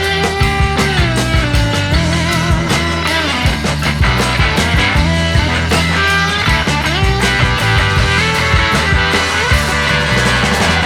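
Background rock music with electric guitar, steady drums and gliding lead-guitar lines.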